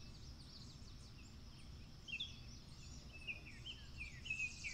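Forest ambience: several small birds chirping, short high notes that come more often from about two seconds in, over a faint steady low rumble.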